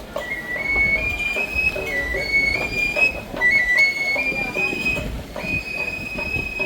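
Papantla Flyers' reed flute playing a high, piping melody of short repeating phrases that step up and down in pitch, with light drum taps beneath. Low wind rumble on the microphone.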